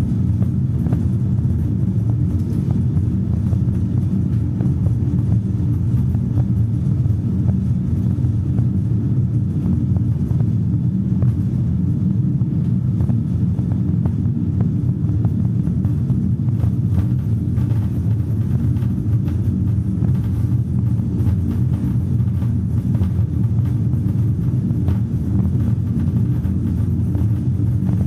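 A steady, dense low rumbling drone with faint crackles, unchanging in level or pitch throughout.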